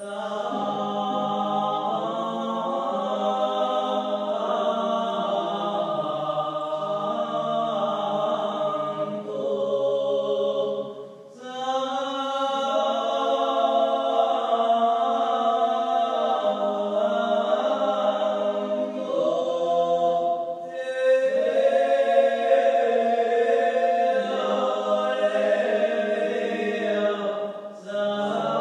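Music soundtrack of a choir chanting in held chords, with short breaks about eleven seconds in and again near the end.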